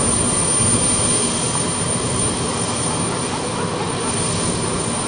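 Tu-154B-2 airliner's jet engines heard from the ground, a steady rush of noise with no break.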